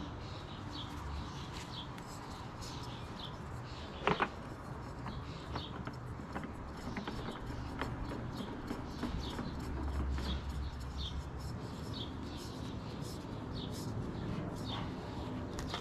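Small birds chirping repeatedly. There is one sharp knock about four seconds in and a low rumble around ten seconds in.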